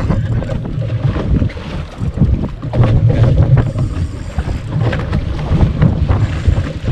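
Wind buffeting the microphone on a small boat at sea: a loud, gusty low rumble with scattered short knocks.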